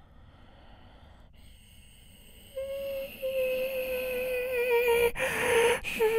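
A human voice imitating a Tokyu 8500 series train by mouth: from about two and a half seconds in, a held humming tone that wavers and slowly falls in pitch as the train is mimicked pulling in, broken near the end by a click and a short hiss.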